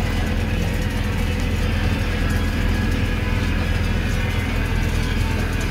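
Diesel engine of a New Holland T5030 tractor running with a steady drone as it pulls and drives a Claas Liner 1550 rotary rake through cut grass.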